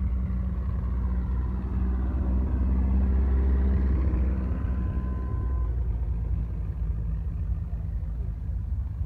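Old tractor engine running as the tractor drives past close by, a steady low chug that is loudest about three seconds in and drops away after the middle as it moves off.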